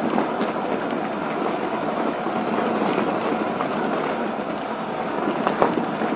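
Focus Jam2 mountain e-bike tyres rolling over the rough, broken floor of an old railway tunnel: a steady rumble and crunch, with a couple of sharp knocks a little after five seconds in as the bike jolts over bumps.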